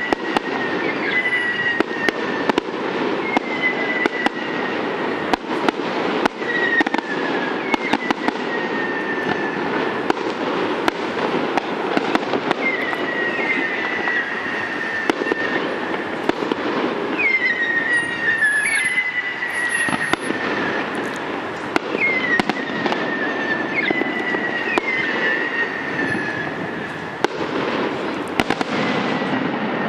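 Aerial fireworks display: a run of high whistles, each one dropping in pitch and then holding, coming about every second or two, among many sharp bangs and crackles.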